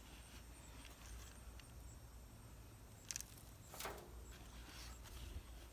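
Bare hands digging through loose soil in a 5-gallon bucket: a few faint scratchy rustles, the loudest about two-thirds of the way in.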